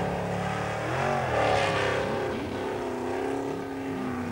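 Formula off-road buggy's engine revving hard as it climbs a steep dirt slope, its pitch rising and falling as the throttle is worked.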